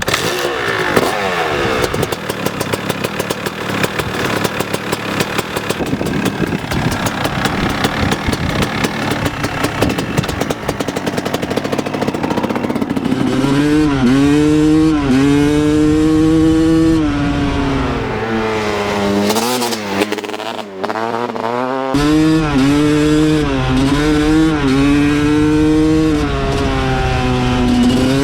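1995 Kawasaki KX250's two-stroke single-cylinder engine running and revving. A rapid crackling note fills roughly the first dozen seconds, then the pitch climbs and drops again and again, with a short drop off the throttle about twenty seconds in.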